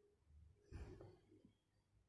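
Near silence: room tone, with one faint short sound a little under a second in.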